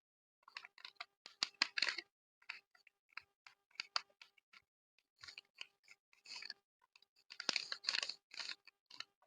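Sheet paper being folded and creased by hand, crinkling and crackling in irregular bursts with short pauses between them; the loudest burst comes near the end.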